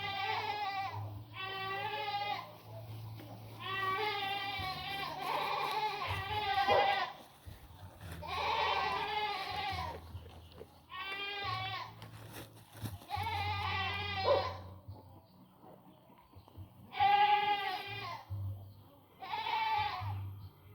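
Goats bleating repeatedly, about eight wavering calls of roughly a second each, with short pauses between them.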